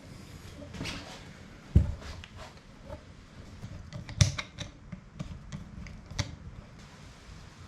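Scattered clicks and knocks of tools and intake parts being handled during a cold air intake install, with two louder thumps about two and four seconds in.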